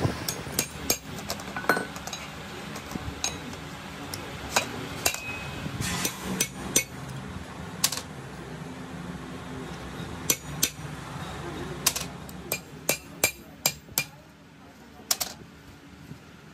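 Metal tools striking and clinking against a steel tractor clutch disc and its hub: sharp taps at irregular intervals, with a quick run of taps toward the end.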